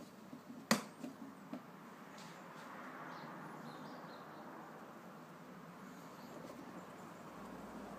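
A sharp click about a second in, with a few smaller knocks, from the closed vanity-case record player being handled. Then a faint, steady hiss.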